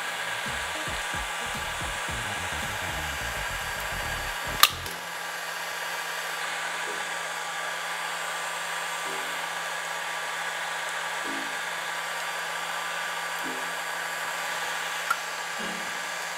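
Heat gun's blower running steadily, with a sharp click about four and a half seconds in and a fainter one near the end.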